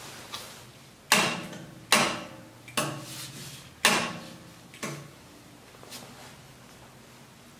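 A run of about six sharp clacks, roughly one a second, each with a short ring: hands handling parts of a yarn hairiness tester. The loudest come about one, two and four seconds in.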